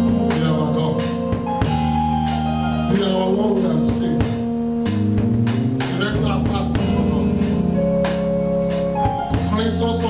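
Gospel worship music: a man singing into a microphone over sustained held chords and a drum kit keeping a steady beat.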